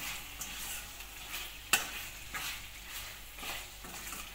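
A metal spoon stirs and scrapes chicken pieces in masala around a stainless steel pan, over a low sizzle of frying oil. One sharp clink of the spoon on the pan comes a little under two seconds in. The chicken is cooked through and nearly done.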